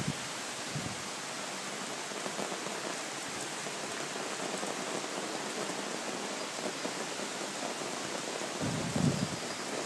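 Heavy rain pouring down in a steady, dense hiss during a storm, with a brief low rumble near the end.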